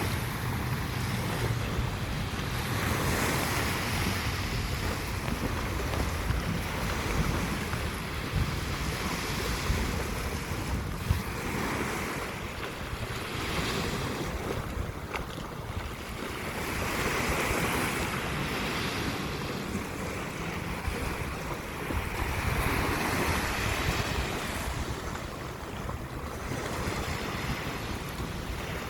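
Sea waves breaking and washing up on a beach, the surf swelling and easing every few seconds, with wind buffeting the microphone in a low rumble.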